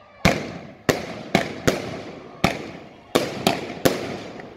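Aerial fireworks bursting overhead: about eight sharp bangs in quick, uneven succession, each followed by a fading echo.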